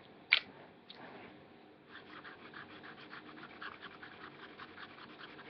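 Faint scratching: a sharp click about a third of a second in, then from about two seconds on a run of fast, soft scratches.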